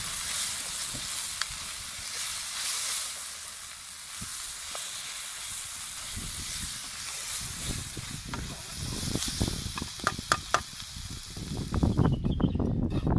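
Pieces of liver with chilli and tomato sizzling in an oiled pan over a wood fire as they are stirred with a wooden spoon, with a few sharp knocks and scrapes of the spoon against the pan about ten seconds in. Near the end the sizzle cuts off, giving way to low knocks and handling noise.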